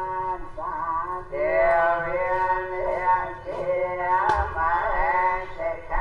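Music from a Cambodian funeral ceremony: a man's voice singing over a steady held drone note. There is one sharp click a little over four seconds in.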